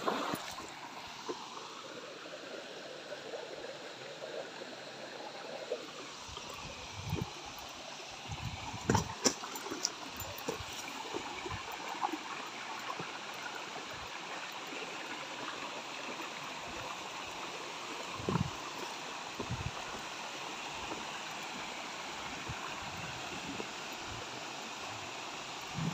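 Shallow rocky creek running steadily, with a small waterfall splashing into a pool. A few short low bumps break in now and then.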